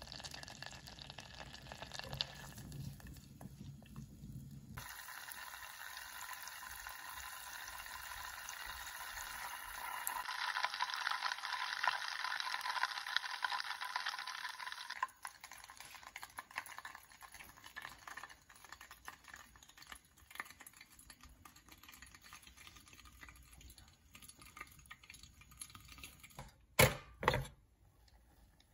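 Butter melting and sizzling in a stainless steel saucepan over a gas burner, a hissing crackle of fine pops as it foams while being browned. The crackling is busiest in the middle and thins out later. Near the end come two sharp knocks.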